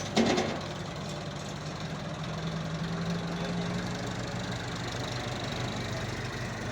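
Tractor engine running steadily at idle with a fast, even firing rhythm, while the loader lowers a load. A brief loud noise comes right at the start.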